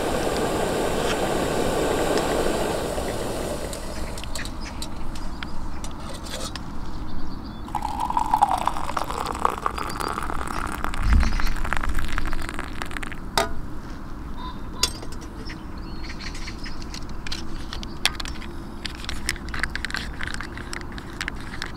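Gas canister stove burner hissing under a pot of water, the hiss fading a few seconds in. Hot water is then poured into a titanium cup, the pouring sound rising in pitch as the cup fills. After that come light clinks and scrapes as instant coffee is stirred in the cup.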